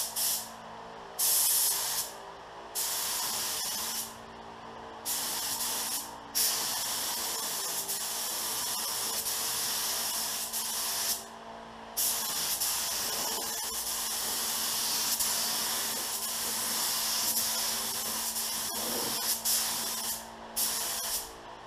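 Pro-Tek 4000 HVLP gravity-feed spray gun with a 1.3 nozzle spraying base coat: a steady hiss of air and atomised paint that starts and stops with each trigger pull. There are several short passes early on, then one long pass of about eight seconds in the middle.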